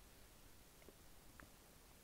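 Near silence: faint hiss with two faint ticks about a second and a half apart.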